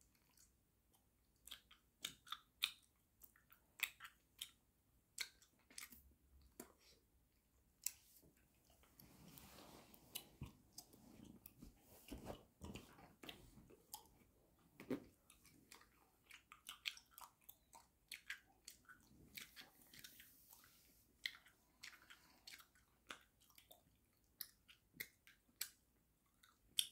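Bubble gum being chewed close to the microphone: irregular wet smacks and sharp clicks, several a second at times.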